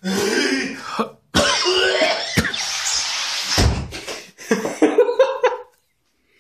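A man coughing and clearing his throat in several bouts, ending in a quick string of short coughs: his nose and throat are irritated by tear gas.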